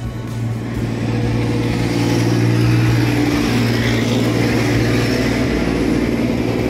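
An engine running steadily with a low hum, growing louder about a second in and then holding.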